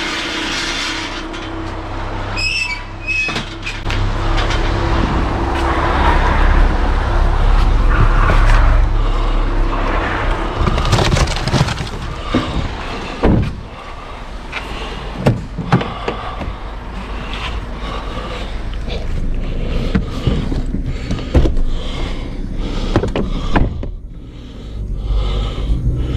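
Vehicle engine running with a steady low rumble, a brief high squeal about two and a half seconds in, then scattered knocks and clicks through the second half.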